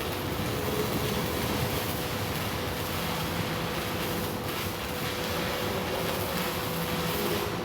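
Steady, continuous hissing, rushing noise with a faint steady hum underneath and no distinct knocks or clicks.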